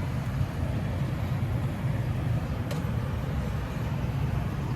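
Steady low rumble of distant city road traffic, with wind on the microphone.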